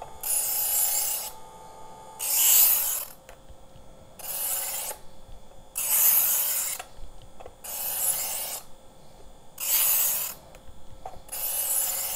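A Work Sharp electric knife sharpener grinding the steel edge of a dull kitchen knife on its spinning abrasive sanding discs, in the sharpening stage before honing. There are seven passes, each a high rasping hiss about a second long, coming about every two seconds, with the motor's faint steady hum between them.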